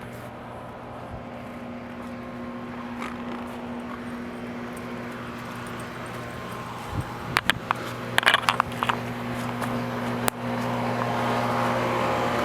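2001 Trane XE1000 heat pump outdoor unit running in heating mode: a steady electrical hum with fan and airflow noise that slowly grows louder. A quick run of sharp clicks comes about two-thirds of the way through, and a single click near the end, after which the unit sounds louder.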